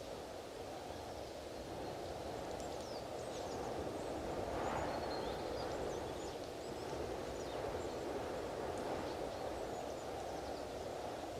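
Strong wind blowing steadily and swelling into a gust around the middle. Faint high, short chirps of small birds come through over it for a few seconds.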